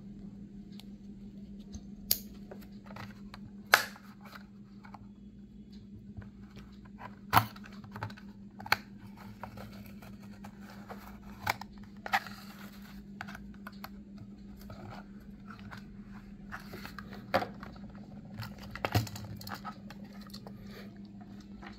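Toy-car blister pack being cut open with a utility knife and the plastic blister pried off the cardboard card: scattered sharp clicks, scrapes and crinkles of plastic and card. A steady low hum runs underneath.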